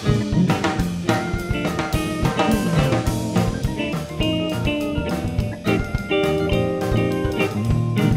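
Background music: an upbeat band tune with a steady drum beat and guitar.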